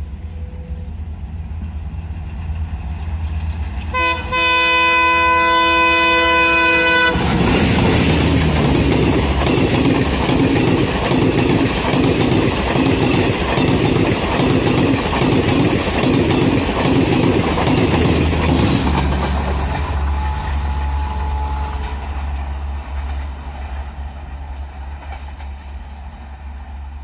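Garib Rath Express hauled by a diesel locomotive passing at speed. The locomotive's horn sounds as the train approaches: one blast fades just after the start, and a second lasts about three seconds. The coaches then rush past for about twelve seconds with rhythmic wheel clatter, and the sound falls to a fading rumble as the train moves away.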